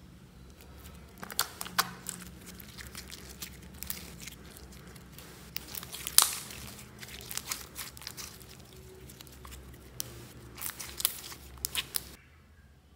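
Thick green slime being squeezed, stretched and folded by hand, giving many sharp sticky clicks and pops. The sounds stop suddenly near the end.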